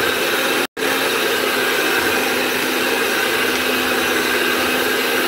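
Handheld electric mixer running steadily, its beaters whirring in cake batter. The sound cuts out completely for an instant just under a second in.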